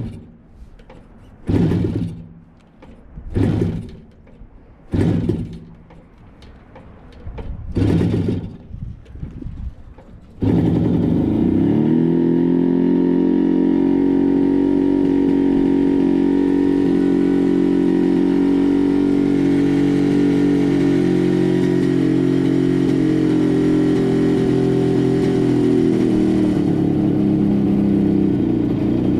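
1967 Kawasaki A1SS Samurai's two-stroke parallel-twin engine: a run of short revs every couple of seconds, then from about ten seconds in a loud, steady running note that eases off slightly near the end.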